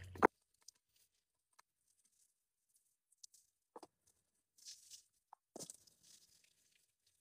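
A sharp click at the very start, then faint, scattered crinkly rustles from a thin white plastic sheet being shaken and flapped out by hand.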